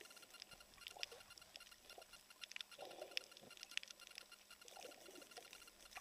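Faint underwater sound over a coral reef: irregular sharp clicks and crackles, roughly two a second, with soft swishes of water movement, muffled by the camera's waterproof housing.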